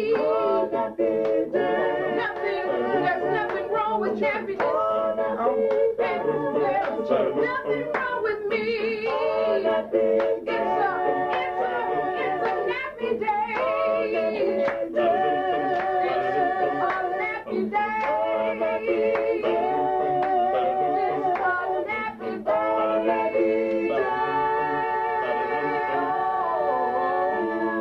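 A small group of voices singing a cappella in a small room, held notes sliding between pitches, with hand claps through the song.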